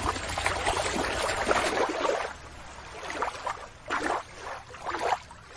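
Shallow water splashing and sloshing as a hand dips a toy in it; the noise drops after about two seconds, leaving a few short splashes.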